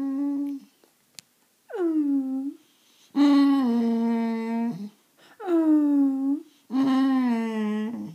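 Boxer dog 'talking': a run of about five drawn-out whining moans, each dropping in pitch at the start and then holding, the longest near the middle. It is the moaning he does when he feels he isn't getting enough attention.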